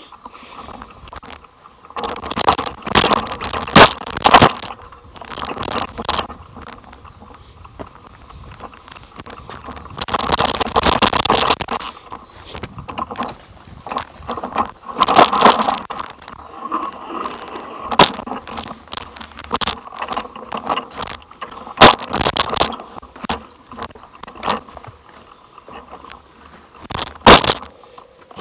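Rattling, scraping and jolting knocks of a ride going down a rough rocky track, with a few sharp bangs from the bigger bumps.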